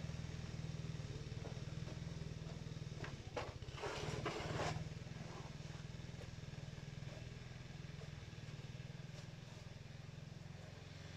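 A steady low motor-like hum, with a few seconds of rustling and scraping about three to four seconds in.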